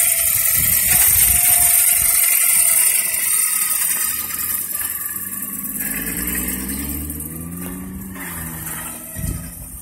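Brushless electric drivetrain of a 1/5-scale Losi DBXL RC buggy whining as it tows a loaded garden cart over asphalt, with the rumble of tyres and cart wheels rolling. The high whine fades after about four seconds and a lower, wavering hum comes in around the middle.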